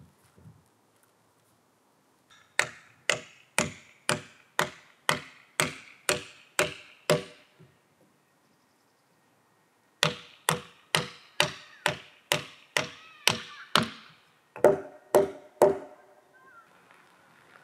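Repeated hammer blows at a steady pace of about two a second, each ringing briefly. About ten strikes, a pause of roughly three seconds, then about a dozen more.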